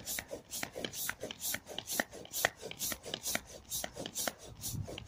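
Manual air pump pushing air through a hose into a vinyl inflatable, a quick, even run of puffing strokes about four a second as the chamber slowly fills.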